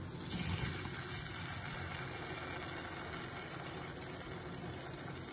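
Appam batter frying in oil in the cups of an appam pan on a gas stove: a steady, even sizzle.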